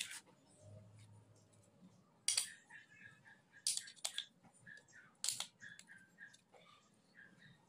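Scooter clutch shoe and torque drive parts being handled: about five sharp clicks and knocks of hard parts as they are turned over and set down, the loudest a little over two seconds in.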